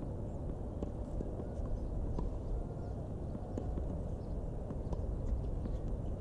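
Steady low wind rumble on the microphone, with faint, irregular taps of a tennis ball being bounced on a hard court before a serve.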